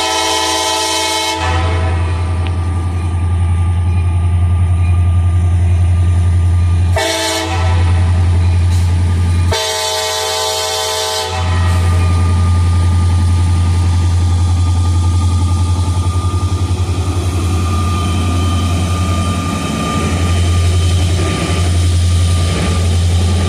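CSX diesel locomotive horn blowing three blasts: one ending about a second and a half in, a short one about seven seconds in, and a longer one about ten seconds in. Between and after the blasts the locomotive's steady low drone carries on.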